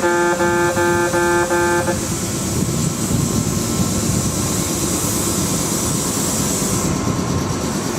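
Station level crossing buzzer sounding in a pulsing, repeating tone, which stops about two seconds in. It gives way to the steady running noise of a Kintetsu 12400-series train in the station.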